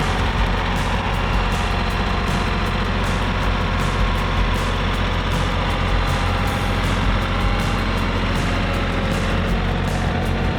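Tractor engine running steadily under load, a continuous low hum with no breaks.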